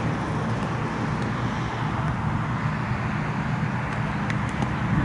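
Steady low outdoor background rumble with no clear single source, and a few faint clicks a little past four seconds in.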